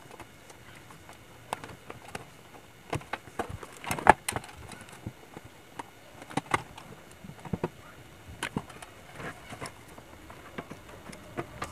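Scattered clicks and knocks from a sheet-metal gas compressor casing and its internal parts being handled and taken apart, the loudest knock about four seconds in.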